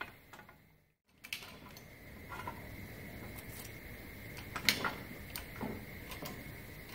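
Central Machinery 6-ton benchtop shop press bearing down on a steel rod laid in a bent sheet-metal rib: scattered light clicks and creaks of metal under pressure over a steady low background hum. The sharpest click comes a little before five seconds in, and the sound cuts out briefly about a second in.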